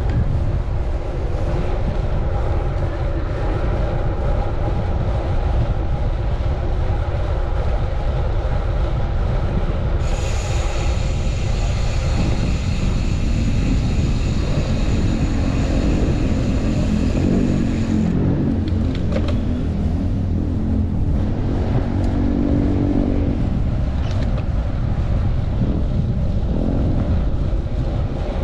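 Strong gusty wind buffeting the microphone of a bicycle rider's chest-mounted camera, a loud steady rumble, with traffic passing. A high whine sounds for several seconds partway through, overlapping a lower engine-like hum.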